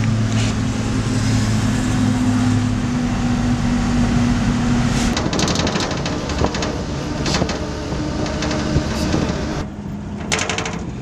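Pickup truck engine running steadily on the road, with wind and road noise. About five seconds in the steady engine hum drops away, leaving rougher wind and road noise.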